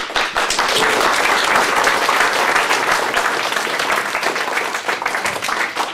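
Audience of high-school students applauding to welcome a speaker after her introduction. The applause starts suddenly and is dense and steady.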